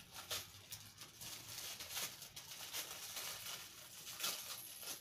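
Clear plastic packaging bag crinkling and rustling as it is cut open with scissors and pulled off by hand, with irregular sharp crackles.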